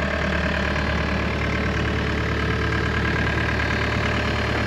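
The engine of a log-handling grapple machine idling steadily, a constant low hum that does not change.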